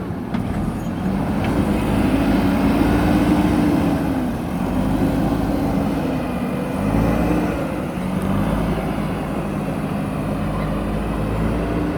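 Backhoe loader's diesel engine working under load, its pitch rising and falling several times as it is revved.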